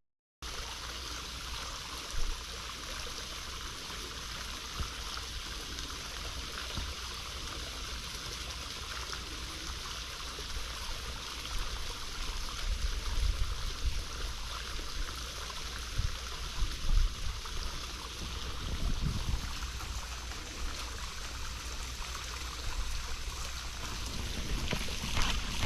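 Steady outdoor rushing noise of flowing water, with low rumbling bumps now and then that come more often in the second half.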